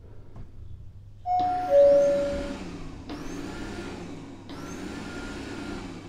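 Honiture Q5 robot vacuum cleaner starting spot cleaning: a two-note falling beep about a second in, then its suction fan and brushes whir up and run steadily, dropping out briefly and spinning up again twice.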